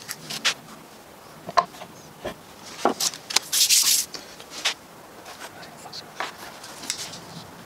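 Scattered clicks and knocks of objects being handled and set down on a wooden workbench, with a brief scraping rub about three and a half seconds in.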